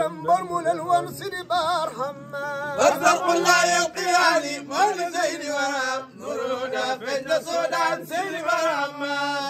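Men's voices chanting a devotional song in a drawn-out, wavering melody, the notes held long and bent with heavy vibrato.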